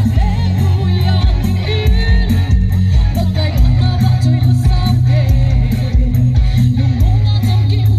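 A woman singing a gospel song into a microphone over amplified backing music, with a heavy bass line and a steady drum beat.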